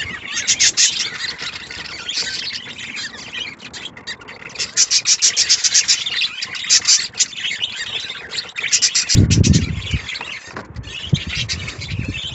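Budgerigars chirping and chattering steadily in high, rapid trains of chirps. About nine seconds in there is a low thump of handling.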